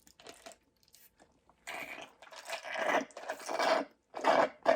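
Close-miked eating sounds: a few small clicks, then crunching and chewing for about two seconds, and once more briefly near the end.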